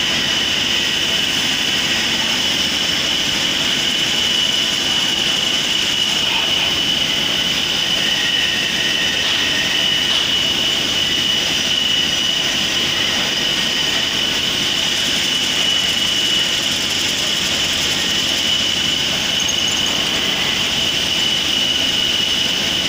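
Noble Industries linear CNC lathe turning a small metal part: the spindle and pneumatic chuck spinning at speed while the tool cuts, giving a steady machining noise with a constant high whine.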